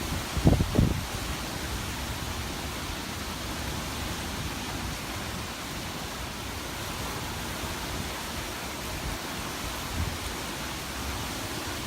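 Steady rushing noise of hurricane wind, with a couple of brief low buffets of wind on the microphone just after the start.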